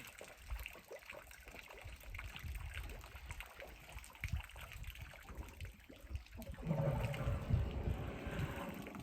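Water trickling and splashing as an elephant drinks, with low noise beneath, getting louder about two-thirds of the way in.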